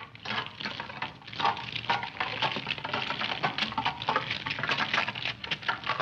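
Rapid, irregular crunching and crackling: the sound effect for the metal-eating bird chewing up a car fender.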